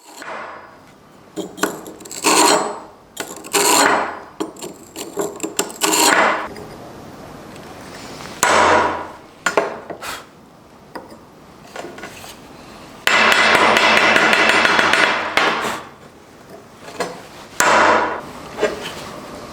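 Blacksmith working iron: short bursts of striking and scraping on metal, with one longer run of fast, closely spaced strikes about two-thirds of the way through.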